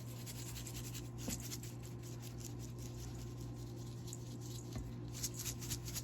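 Seasoning shaken from a shaker onto cut red potatoes: a dense patter of fine ticks, busiest near the end, over a steady low hum.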